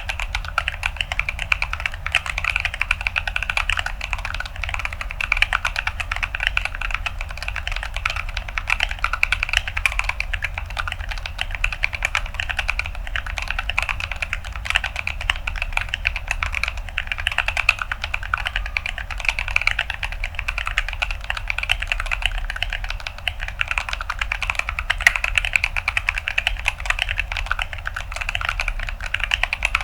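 Continuous fast typing on a mechanical keyboard with Gazzew Boba U4T tactile switches on an acrylic plate and ASA-profile keycaps: a dense, uneven stream of crunchy key clicks. A steady low hum runs underneath.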